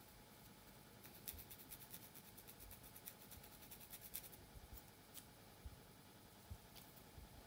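Long acrylic fingernails scratching and picking along a parting in a dry, flaking scalp: faint, crisp little scratches and ticks, in a dense run through the first half and scattered after.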